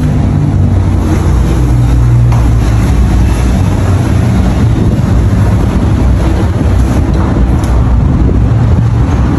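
A loud, steady low rumble of an engine running.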